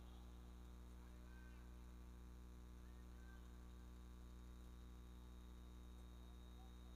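Near silence: a steady low electrical mains hum, with faint brief snatches of voices about a second in and again around three seconds.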